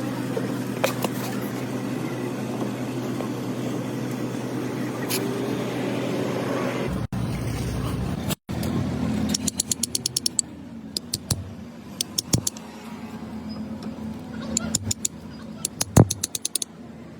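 Workshop sounds: a steady engine-like hum for the first part, then after a break a quieter hum with runs of quick sharp clicks and one loud knock near the end.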